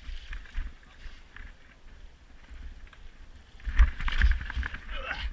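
Mountain bike ridden fast down a rough muddy woodland trail, heard from a camera on the rider. Wind buffets the microphone with a steady low rumble, and the bike clatters and rattles over the ground. A burst of loud knocks and rattling comes about four seconds in, as the bike hits rough ground.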